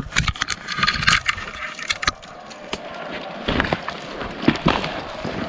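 Footsteps crunching through dry brush and leaves, with irregular cracks and snaps of twigs.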